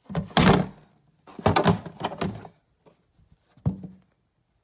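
Two bursts of scraping and rubbing, each about a second long, then a single sharp knock a little before the end.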